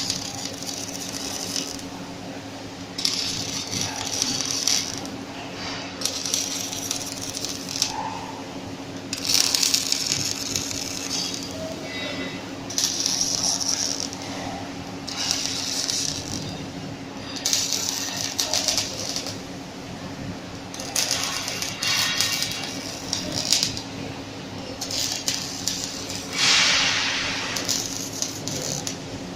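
A machine running with a steady hum, with repeated short bursts of metallic rattling and clinking every second or two.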